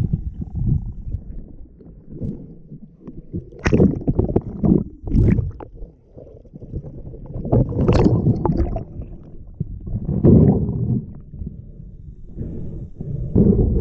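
Water gurgling and sloshing around an action camera carried by a swimming freediver as it dips under and breaks the lake surface, in irregular bursts every two to three seconds over a muffled underwater rumble.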